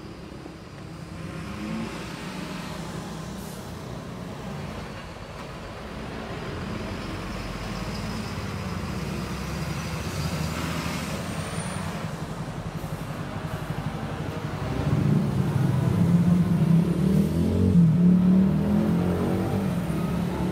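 Road traffic on a nearby street, a steady engine rumble that builds up, with a heavy vehicle's engine running loudest for the last few seconds.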